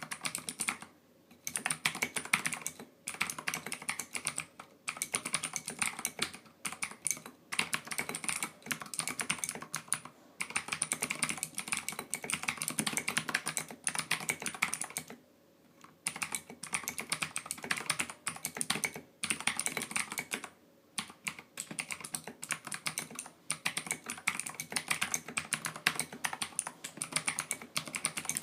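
Typing on a mechanical keyboard fitted with SA-profile PBT keycaps: fast runs of keystrokes broken by brief pauses, with a few seconds' pause about halfway through.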